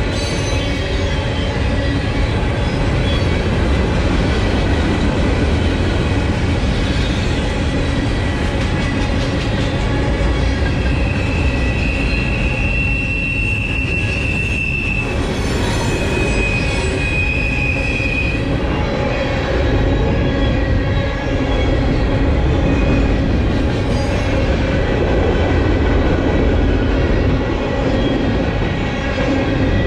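Freight train of gondola cars rolling past, a steady rumble of steel wheels on the rails. A high wheel squeal rises over it twice around the middle, first for about four seconds and then for about two.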